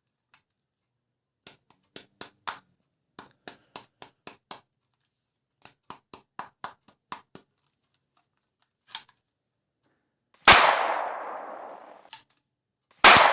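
A run of short, sharp clicks in quick groups of three to five, as from handling or cocking a toy gun. Then two loud gunshot blasts a couple of seconds apart, each trailing off in a long echo.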